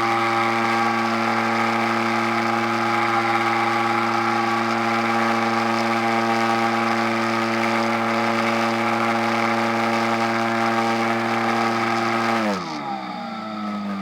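RC model airplane motor running at a steady high throttle with a constant pitch, then throttled back sharply near the end, its pitch falling away.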